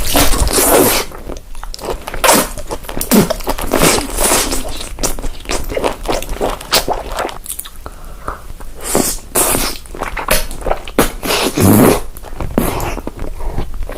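Close-miked mukbang eating sounds: a quick irregular series of bites and chewing, with sharp crackly mouth noises.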